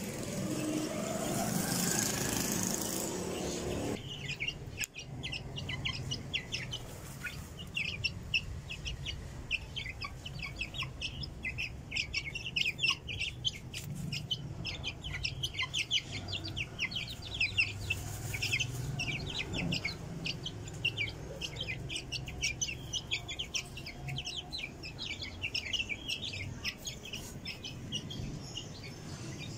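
A group of young Aseel chicks peeping continuously: rapid, high, thin cheeps, several a second, overlapping and uneven. At the start there are a few seconds of rushing noise with a rising whine, which cuts off suddenly about four seconds in.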